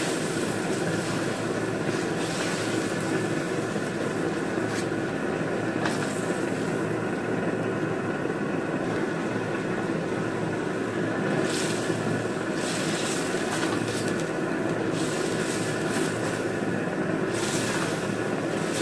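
Meat chunks sizzling in their juices in a steel wok over a gas burner while a plastic spatula stirs them, with bursts of sizzle and scraping every few seconds over a steady hum.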